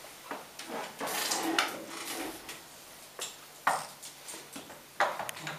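Microphones on table stands and a handheld recorder being set down and shifted on a table: scattered handling clatter with a few sharper knocks.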